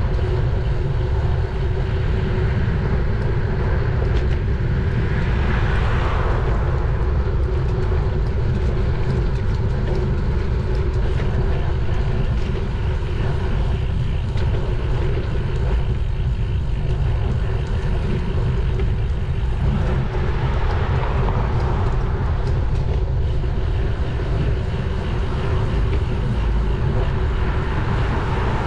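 Wind buffeting the microphone of a bike-mounted camera during a road-bike ride in traffic, a steady low rumble, with motor vehicles swelling past about six seconds in, around twenty seconds in and again near the end.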